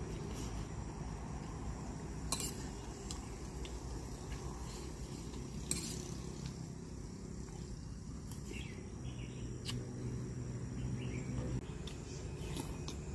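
A spoon clinking against a plate a few separate times while eating, over a steady background with a faint high insect hum.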